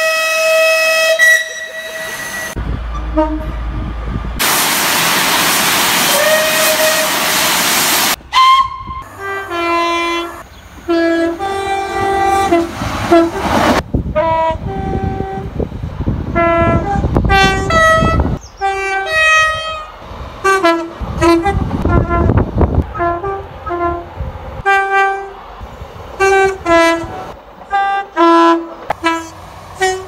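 A steam locomotive's whistle held steady and ending about two seconds in, then a loud hiss of steam for about four seconds. After that come British multiple-unit trains sounding two-tone horns in many short high-low blasts, with the rumble of a train running by partway through.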